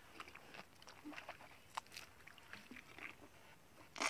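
A cow grazing close by, tearing and crunching dry grass in scattered faint crackles, with a sharper snap near the end.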